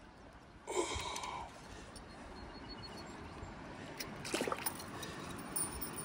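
Shallow river water trickling around rocks. A brief louder noise comes about a second in, and a few light clicks a little after four seconds.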